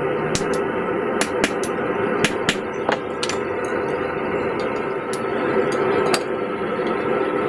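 Hammer blows on hot steel at the anvil while forging a claw hammer head: about seven separate strikes at uneven intervals, most in the first three seconds. A steady background noise runs under them.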